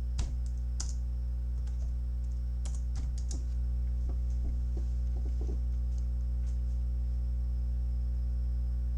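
Scattered keystrokes on a computer keyboard for the first five or six seconds, over a steady electrical hum; after that only the hum remains.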